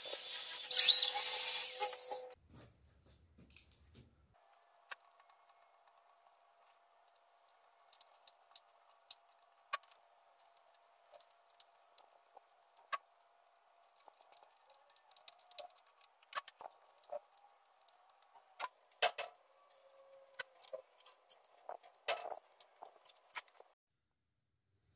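Electric hand drill boring into a hardwood slab, running for about two seconds and then stopping. After that, scattered faint small metallic clicks and taps as screws and threaded inserts are handled and set in the wood.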